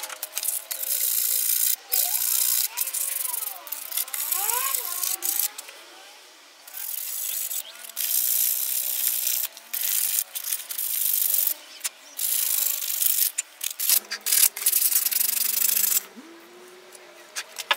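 Rusty old steel pliers scrubbed by hand in quick repeated strokes, first with sandpaper and then with a wire brush, a scratchy rasping with short pauses between bouts. Near the end it turns to softer rubbing as the pliers are wiped with a cloth.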